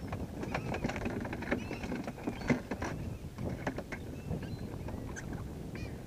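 Wind and water lapping at a skiff's hull, with a run of sharp slaps and knocks, the loudest about two and a half seconds in. Gulls call overhead.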